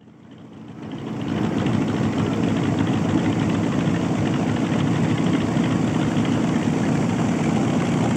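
North American T-28 Trojan's radial piston engine running steadily at low power as the aircraft taxis, fading in over the first second or so.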